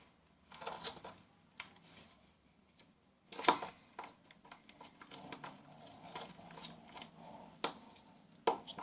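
A utensil stirring and scraping thickening slime in a small container, with scattered clicks and taps against its sides.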